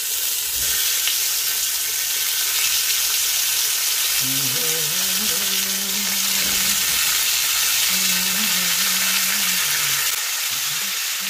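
Marinated rohu fish steaks frying in hot oil in an iron pan with cumin seeds: a steady, loud sizzle as the pieces are laid in one after another.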